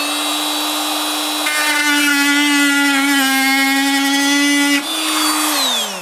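Fein cordless oscillating multi-tool running at a steady pitch, its blade cutting through a wooden batten for about three seconds in the middle. The motor then slows with a falling pitch near the end as the trigger is released.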